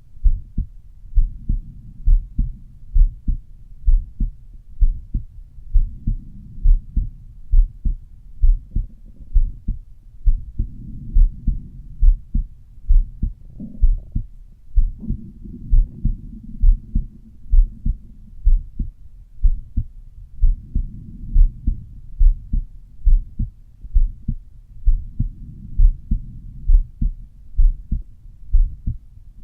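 Human heart sounds heard over the pulmonic area of the chest: a steady, even lub-dub beat of short low thumps, with a low rushing sound between beats that swells at times.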